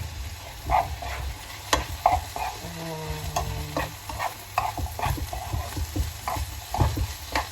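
Spoon stirring chopped peppers and onion frying in butter in a pan: repeated scrapes and knocks against the pan over a steady sizzle.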